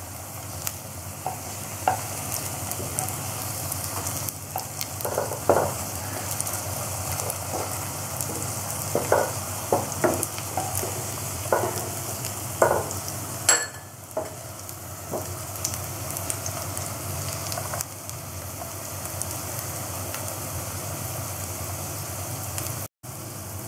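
Potato-and-breadcrumb patties shallow-frying in hot oil in a nonstick pan, sizzling steadily. Short scrapes and taps of a spatula on the pan come during the first half as the patties are turned over.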